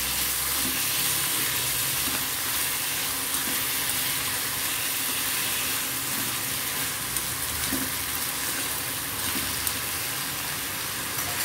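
Cubes of raw plantain sizzling steadily in hot oil in a kadai as they are stirred with a spoon, with a few light knocks of the spoon against the pan.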